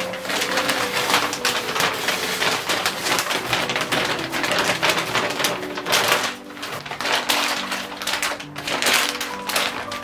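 Black plastic bin bag crinkling and rustling as it is handled and folded, over background piano music.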